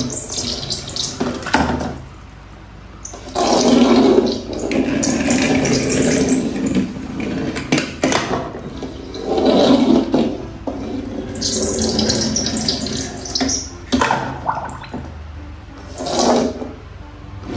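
Water splashing and sloshing in a small basin as die-cast toy cars are tipped into it, in several louder surges.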